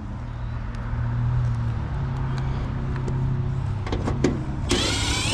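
Air-conditioner condenser buzzing with a steady low hum while its motor fails to start: the "death buzz", which the technician takes for a known fault, typical of a failed run capacitor. A short power-drill whir with a rising whine near the end.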